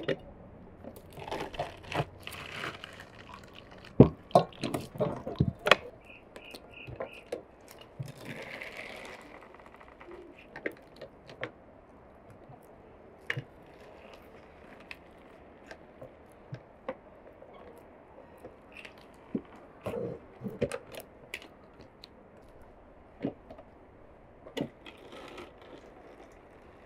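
Pomegranate pieces being crushed in a hand-held metal lever juicer: crunching and squishing of the fruit with clicks and knocks from the press. The knocks come thick and loudest in the first several seconds, then come as scattered clicks.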